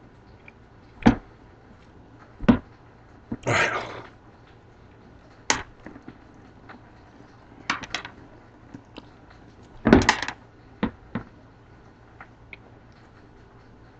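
Close mouth sounds of a man biting and chewing a whole lemon with its tough peel. There are scattered short sharp clicks and smacks, and two longer breathy bursts, one about three and a half seconds in and one about ten seconds in.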